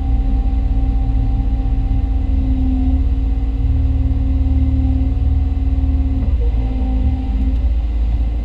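Hyundai Robex 220-9A LC excavator running steadily under load, heard from inside its cab as a deep engine rumble. A hydraulic tone rises and falls back several times as the arm and bucket are worked, compacting a trench.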